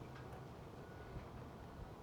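Quiet low background hum with a few faint, light ticks of small handling noise.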